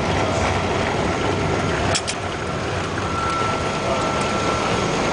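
Steady roar inside an airliner's cabin as it rolls along the runway after landing: engines and wheels running together. A sharp click about two seconds in, and a thin steady whine from about three seconds in.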